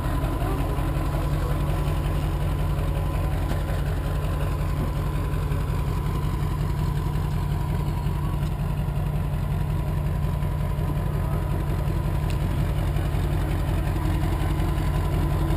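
Heavy diesel truck engine idling steadily, a low even rumble with a faint steady whine above it.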